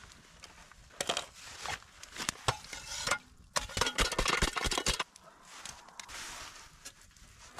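Clattering and knocking of cooking pots and utensils, a dense run of knocks about three and a half to five seconds in, then a softer hiss.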